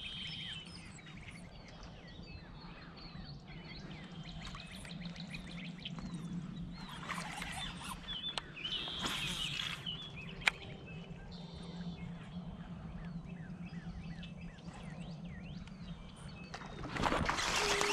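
Birds chirping and calling over quiet water, with a faint steady low hum and one sharp click about ten seconds in. Near the end a loud splashing starts as a fish thrashes at the surface.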